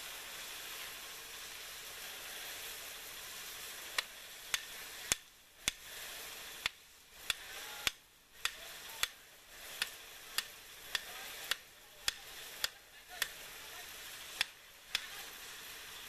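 Hammer blows on wooden concrete formwork: a run of sharp, single strikes about every half second, starting about four seconds in, over a steady hiss.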